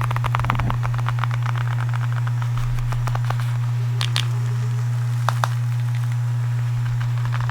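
A steady low background hum. Over it, light rapid tapping and crackling from objects being handled for ASMR in the first second or so, then a few sharp clicks about four and five seconds in.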